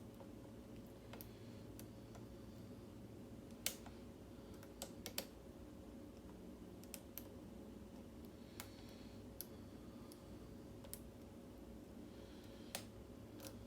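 Faint, irregular small clicks and ticks of a lock pick working the pins inside a Schlage mortise cylinder, the sharpest at about four seconds, five seconds and near the end, over a steady low hum.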